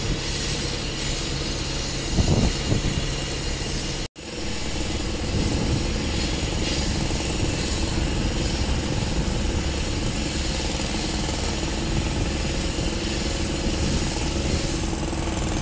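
Heavy construction machinery with diesel engines running steadily, a continuous mechanical din with a low hum underneath. The sound cuts out for an instant about four seconds in.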